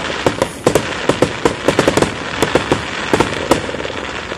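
Fireworks display: a dense, irregular run of sharp pops and cracks from bursting shells.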